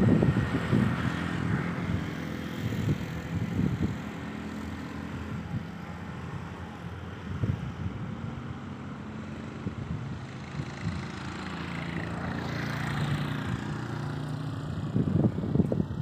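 A motor vehicle engine running at a distance, a low steady hum whose pitch shifts and which swells about twelve seconds in. Gusts of wind buffet the microphone at the start and again near the end.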